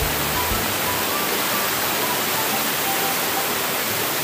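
Aluminium pressure cooker venting steam under pressure: a loud, steady hiss from the weight valve as it whistles.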